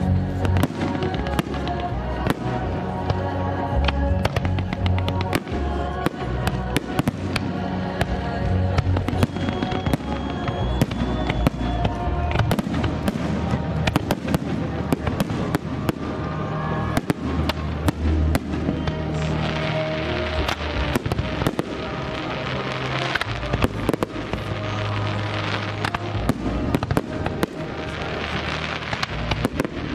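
Fireworks display: many aerial shells bursting with sharp bangs in quick succession throughout, over music playing. From about two-thirds of the way in, a dense crackling joins the bangs.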